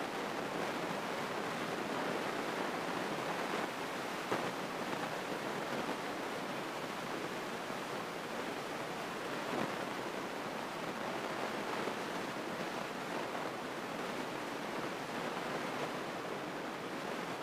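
Steady rushing noise of a small single-engine airplane's engine and propeller running, heard inside the cockpit, with a couple of light knocks, about four and about ten seconds in.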